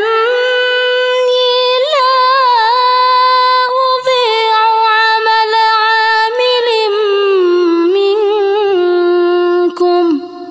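A female reciter chanting the Quran in tartil style, drawing out one long melodic note with small waving ornaments, which steps lower about halfway and falls away near the end.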